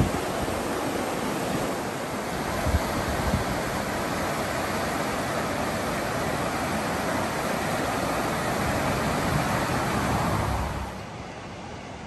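Whitewater rapids of the Blackwater River rushing steadily, the rush dropping to a quieter flow about eleven seconds in.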